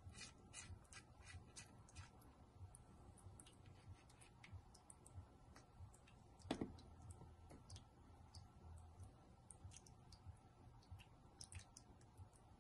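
Faint, scattered small clicks and taps of miniature kitchen utensils and dishes being handled, with one louder knock about six and a half seconds in.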